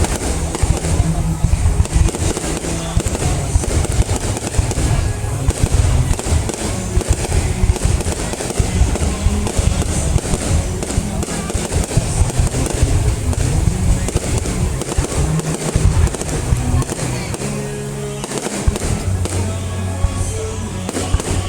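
Fireworks display: a continuous barrage of bursts and crackles with deep booms, over background music.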